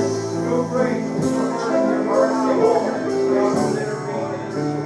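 Worship music: a band playing a song with strummed guitar and sustained chords.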